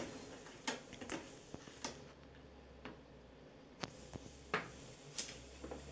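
About eight faint, scattered clicks and light taps spread over six seconds. They come from hands handling things at a kitchen counter: a plastic bowl of broth being stirred, and chopped dill on a plastic cutting board.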